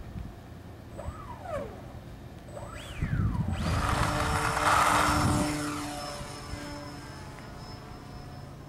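Quickie 380 RC plane's brushless electric motor and propeller: two short throttle blips, each a whine that rises and falls in pitch, then full throttle for the takeoff run, loudest about five seconds in. The whine fades as the plane climbs away, leaving a faint steady high tone.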